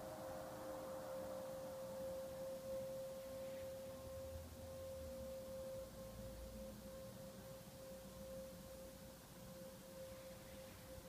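A faint, steady pure tone held at one pitch, with a much fainter tone about an octave above it.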